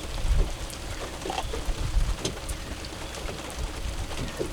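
Rain falling, with scattered light taps and a steady low rumble underneath.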